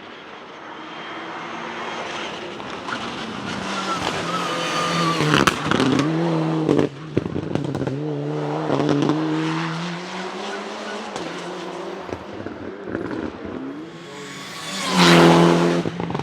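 Mitsubishi Lancer Evolution IX Group N rally car's turbocharged four-cylinder engine revving hard and shifting through the gears on a hillclimb run. Its anti-lag misfiring system makes sharp pops and bangs. The sound swells to its loudest as the car passes close near the end.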